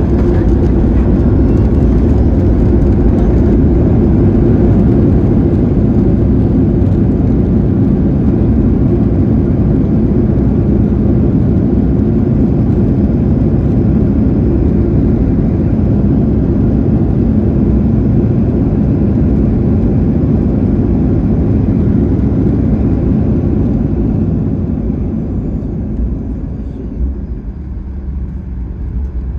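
Boeing 737-800 cabin noise on the landing rollout: a loud, steady low roar of the CFM56-7B engines and the wheels on the runway. The roar eases off about 25 seconds in as the jet slows.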